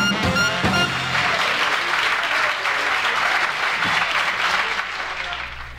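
A live jazz band record played on a vinyl turntable: the band's last notes end about a second in, and audience applause follows, fading away near the end.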